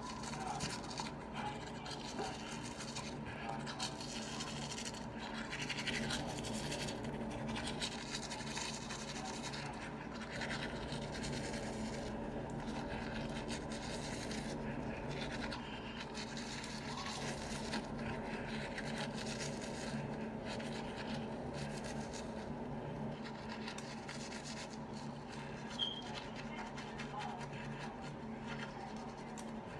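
Manual toothbrush scrubbing back and forth over teeth through a mouthful of foam: a continuous wet, scratchy brushing made of many short strokes, over a steady low hum.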